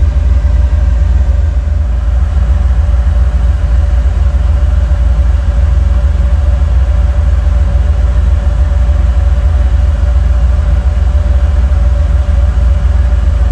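A Jeep rock crawler's 500-horsepower LS V8 running steadily at low revs while crawling over slickrock, heard from inside the cab: a constant low rumble with a steady whine above it and no revving.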